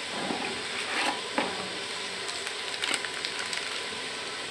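Pieces of beef shank frying in oil in an aluminium pot with freshly added turmeric and spice mix, a steady sizzle. A few sharp clicks of a metal spoon against the pot come through it.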